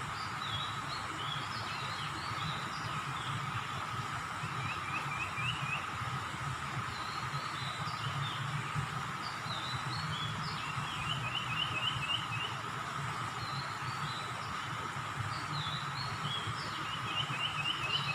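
Small birds chirping outdoors: scattered high chirps, with a quick run of about five notes heard three times, over a steady background drone.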